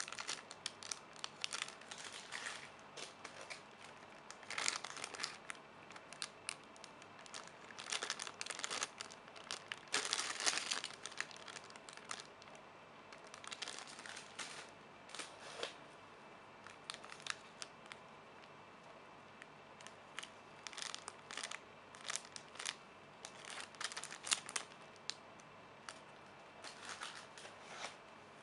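Plastic wrapping crinkling and rustling in irregular bursts as it is handled, with a few louder crackles.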